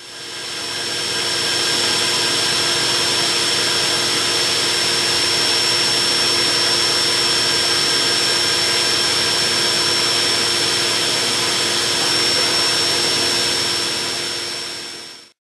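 Leadwell V30i CNC vertical machining centre finish-milling a brass trigger guard's finger profile under flood coolant: a steady high whine over a constant hiss. It fades in at the start and fades out just before the end.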